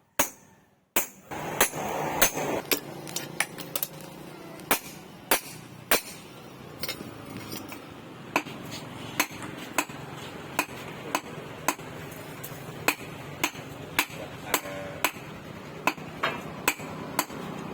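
Hand hammer striking steel on an anvil: a long run of sharp, ringing blows at about one to two a second, unevenly spaced, over a steady background noise. A short near-silent break comes just after the start.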